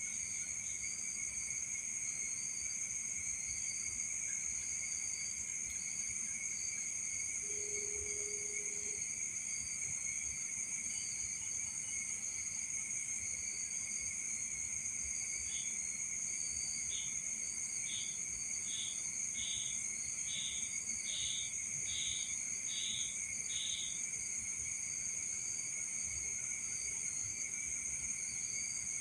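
Night insect chorus of crickets, a steady shrill trill at several pitches. Partway through comes a run of about ten short chirps, a little under one a second, growing louder.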